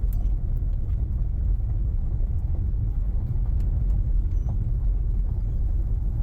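Car driving, heard from inside the cabin: a steady low rumble of road and engine noise, with a few faint ticks over it.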